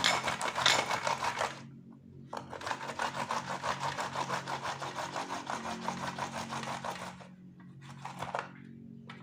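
White ginger root rubbed on a hand grater in rapid, even back-and-forth strokes, stopping briefly about two seconds in and again about seven seconds in, with a few short strokes near the end.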